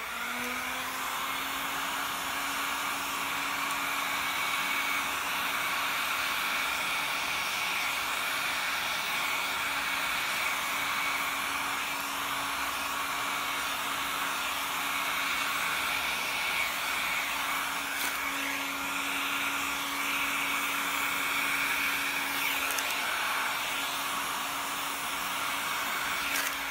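Heat gun running on its highest fan setting with a small nozzle attachment, blowing hot air over wet epoxy resin: a steady rush of air with a motor hum and whine. It spins up at the start and is switched off at the end.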